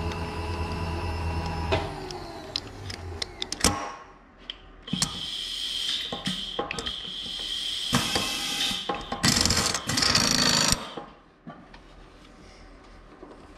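A milling machine's powered table lift motor running steadily, then stopping about two seconds in and falling in pitch as it winds down. After it, metal clicks and loud rattling, scraping bursts as a drill chuck holding a center drill is fitted into the spindle and tightened.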